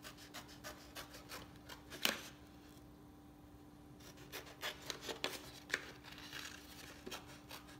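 Scissors snipping through a paper plate: a run of short cuts, a pause of about two seconds, then more cuts.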